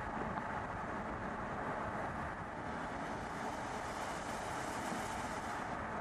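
Audi A5 Cabriolet driving along a road: steady engine and tyre noise, with a hiss that grows in the second half.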